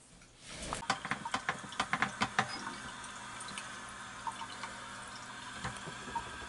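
Bathroom sink faucet running a thin stream into the basin, starting about half a second in, with a flurry of splashes and clicks over the first two seconds as hands work in the water, then a steady pour.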